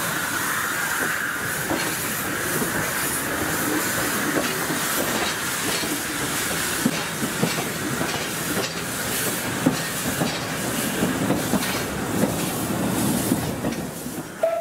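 Talyllyn Railway narrow-gauge steam train running along the track, heard from an open carriage window: a steady rumble with wheels clicking over the rail joints, and a hiss of steam that is strongest at the start.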